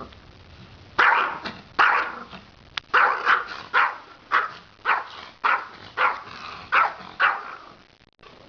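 A dog barking over and over: about eleven short, sharp barks, roughly two a second. They begin about a second in and stop about a second before the end.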